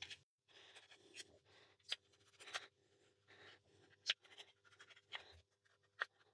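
Faint, irregular scratching and sharp little clicks of a flat-bladed screwdriver turning out the small securing screws on the back of a Daystate Pulsar air rifle's bolt assembly.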